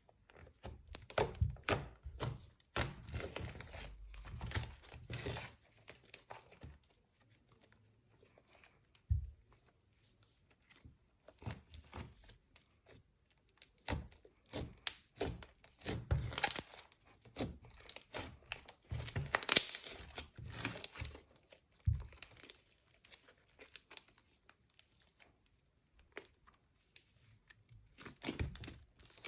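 Hands squeezing, stretching and poking thick slime, making irregular runs of sticky crackles and pops with short pauses between.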